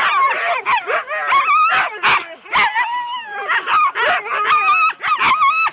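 Several Siberian huskies in a harnessed sled team barking and yelping together, a dense overlapping chorus of long wavering high calls and short sharp barks. This is the excited noise of sled dogs held back and eager to run.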